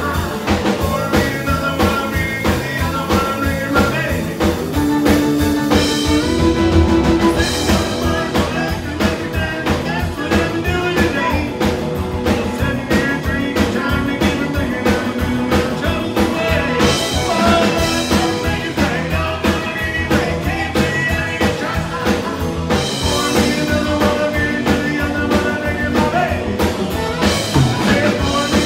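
Live country band playing an up-tempo song: acoustic guitar, fiddle, electric bass and drums with a steady beat.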